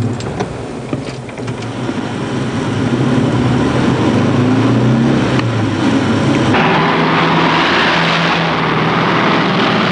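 A test car's engine running, heard from inside the cabin, its pitch climbing and then dropping back. About six and a half seconds in the sound switches abruptly to a louder, rougher engine-and-road noise from a Scania 110 Super truck.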